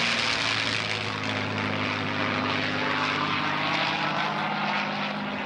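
P-51 Mustang's Merlin V12 piston engine and propeller running steadily at display power as the fighter flies overhead, a deep even drone with a harsh propeller rasp on top.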